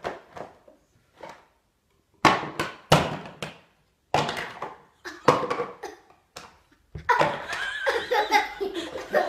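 People laughing in short peals, then more continuously in the last couple of seconds.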